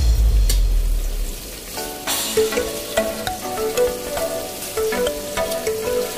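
Chopped garlic and sliced green chilies sizzling in melted butter in a pan, with a spoon stirring through them. A low musical beat fades out in the first second, and light background music plays over the sizzle.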